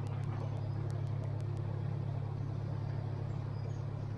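Narrowboat's diesel engine running steadily at cruising speed, a constant low drone. A few faint high clicks come in the first second and a half.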